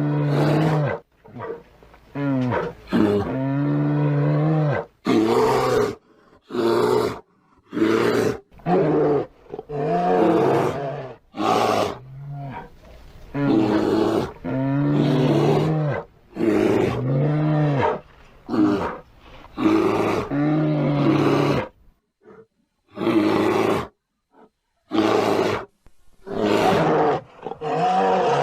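A bear roar sound effect, repeated over and over in quick succession, each roar about half a second to two seconds long with short gaps between.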